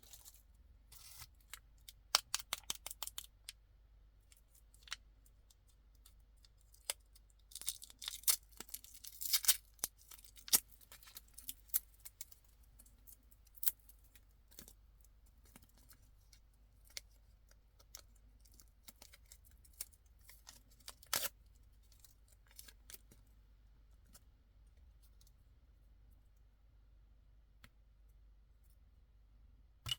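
Candy wrappers and packaging being handled and opened: a run of sharp clicks, crinkles and short tearing rustles. The sounds are densest about a quarter of the way in and thin out to a few scattered taps near the end.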